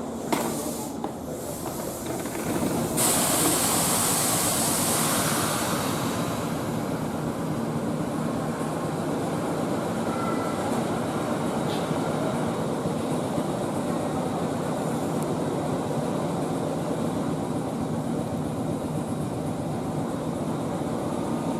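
Train running on the rails with a steady rumble, and a burst of hissing about three seconds in that lasts a few seconds.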